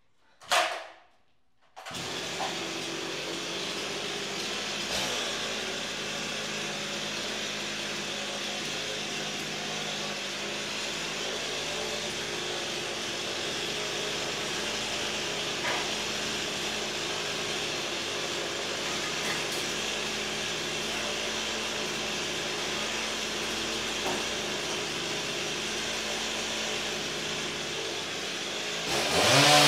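A brief loud noise about half a second in, then a chainsaw engine idling steadily. Near the end it revs up, rising in pitch.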